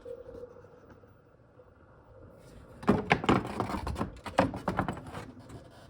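Radiator fan shroud being worked out of the engine bay: after a quiet start, a quick run of knocks, clacks and scrapes as it is pulled free.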